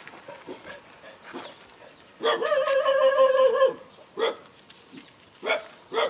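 A dog gives one long, steady whine of about a second and a half, dropping in pitch at the end, then two short barks.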